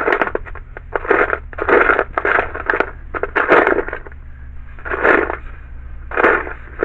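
Loose screws rattling and scraping in a can as a hand rummages through them, in repeated short bursts, over a low steady hum.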